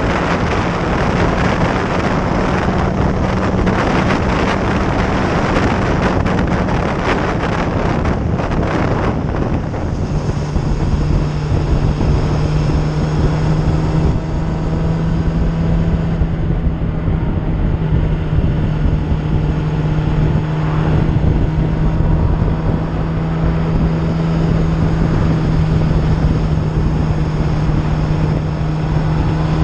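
Motorcycle engine at a steady cruising note under heavy wind rush on the microphone. About ten seconds in, the engine note drops a little, the wind eases, and the engine stands out more clearly.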